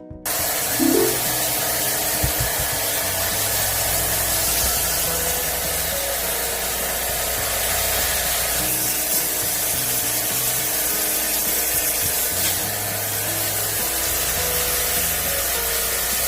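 Pressure washer spraying water into a ceiling cassette air conditioner during cleaning: a loud, steady hiss that starts suddenly right at the start. Background music plays faintly underneath.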